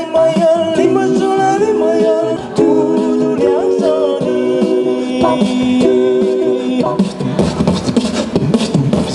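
Unaccompanied voice singing through a karaoke microphone in long held notes that step from pitch to pitch. From about seven seconds in it breaks into quick, clicky beatboxing.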